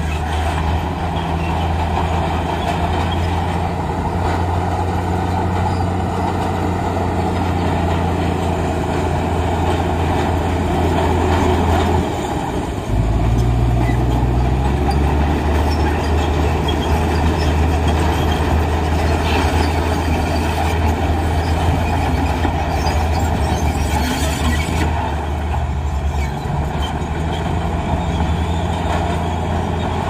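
Heavy diesel earthmoving machinery running steadily under load. About twelve seconds in, the engine note dips briefly and changes, then settles again.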